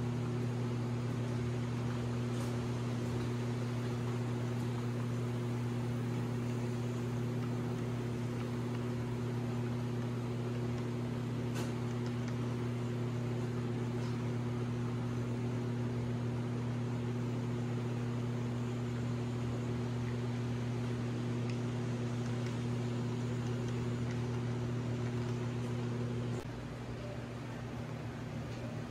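Steady low electrical hum over a faint hiss, with a few faint ticks. The hum drops in level and changes near the end.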